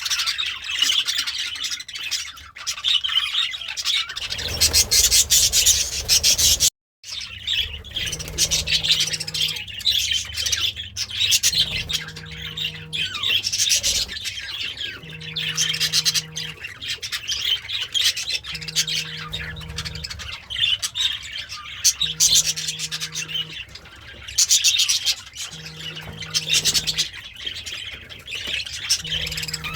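Budgerigar warbling and chattering without pause, a fast jumble of chirps and harsh squawks, cut off briefly about seven seconds in.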